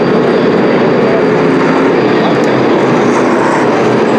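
A field of NASCAR Truck Series race trucks running on the track, their V8 engines making a loud, steady drone.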